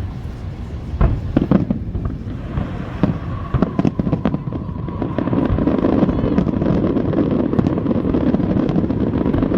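Aerial display fireworks going off: several separate sharp bangs, then from about halfway a dense, continuous crackling rumble as many shells burst together.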